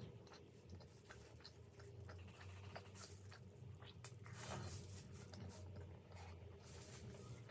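Faint chewing and biting of vegetable momos: soft mouth sounds with scattered small clicks, over a low steady hum.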